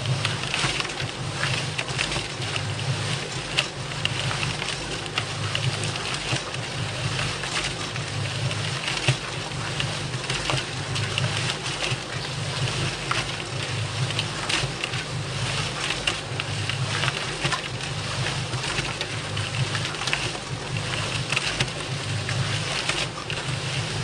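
Concrete mixer running steadily: a constant low motor hum under continuous rattling noise with frequent small knocks.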